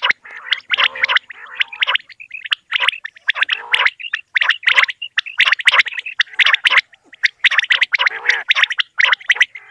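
Common quails (batair) giving their morning calls: a dense, unbroken run of short, rough call notes, several a second, from more than one bird. This is the kind of call played to lure quail for hunting.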